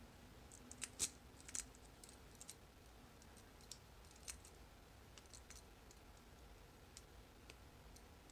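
Faint, irregular clicks and light scratches of a lock pick working the pin stacks of an old Corbin Master Ring padlock under tension, a few sharper ticks about a second in.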